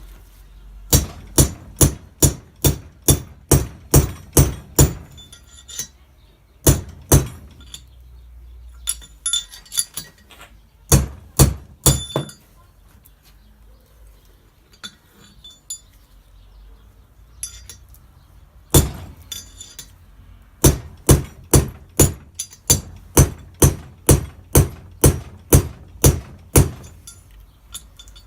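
Hammer blows, metal on metal, knocking bearings out of a Nissan Laurel C32 rear differential: runs of sharp ringing strikes about two to three a second, with a pause of several seconds midway.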